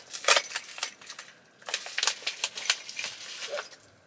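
Paper packaging crinkling and rustling in quick crackly bursts as a small package is torn open and the wrapping is pulled off a glass-breaker tool; it stops just before the end.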